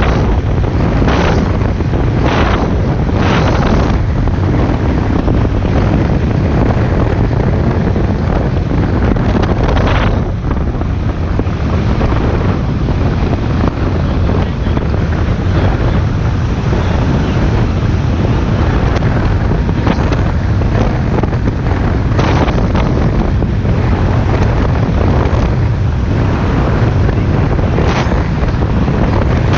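Wind buffeting the microphone on a speedboat running fast across open sea, a steady low rumble underneath. Every few seconds the hull slaps and splashes through a wave.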